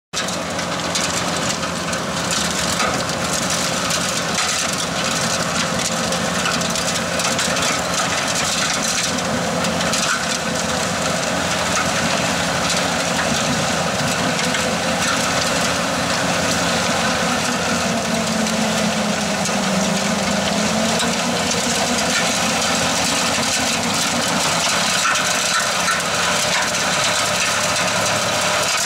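Bobcat skid-steer loader running steadily while powering a TEAMCO Snowblast 6600AR hydraulic snowblower attachment that is throwing snow, a continuous heavy engine drone that cuts in abruptly at the start.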